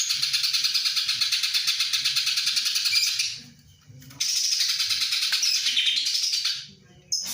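A songbird singing in two long, fast twittering phrases of about three seconds each, with a short pause between them, then a couple of short chirps near the end.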